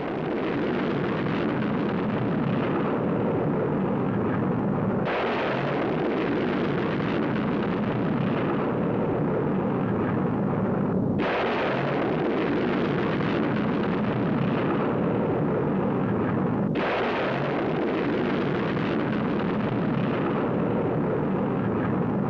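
Ballistic missile rocket engines at launch: a loud, continuous roar of rushing noise. Its character changes abruptly about five, eleven and seventeen seconds in.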